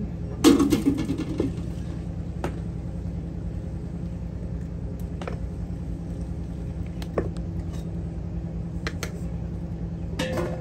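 Wooden stirring stick knocking and scraping now and then against a metal cooking pot as maize-flour porridge is stirred over a wood fire, with a burst of clatter about half a second in. A steady low hum runs underneath.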